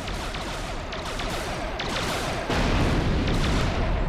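Cartoon sci-fi laser blaster shots and blasts in a dense barrage, getting louder about two and a half seconds in.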